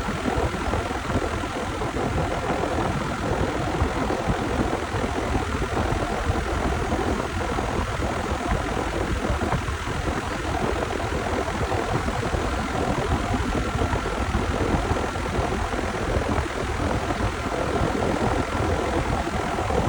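American Standard central air conditioner's outdoor condenser unit running steadily, its fan blowing air, with a faint steady whine.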